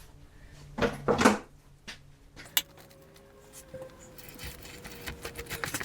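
A wax roller being worked over plastic beehive foundation and handled: two loud scraping strokes about a second in, a sharp click, then lighter rubbing and scraping toward the end, with a faint steady tone under it.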